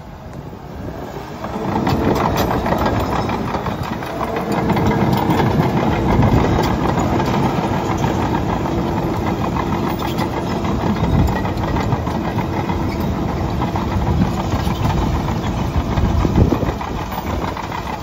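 Komatsu D61PX-24 crawler bulldozer's diesel engine working hard as the dozer pushes concrete and brick rubble. It builds up about a second and a half in, then holds steady, with scattered knocks and scraping from the tracks and the debris.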